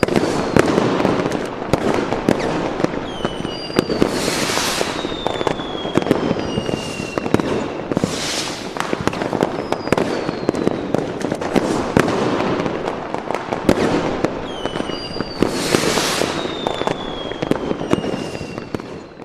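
Fireworks and firecrackers going off in a dense, continuous barrage of sharp cracks and bangs. Louder crackling bursts come about every four seconds, and several whistles glide down in pitch.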